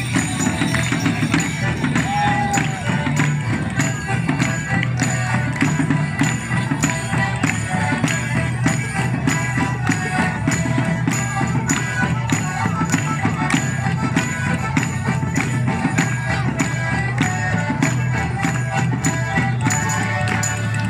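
Border Morris dance band playing a tune on melodeons and accordions with banjo, over a steady drum beat of about two strokes a second.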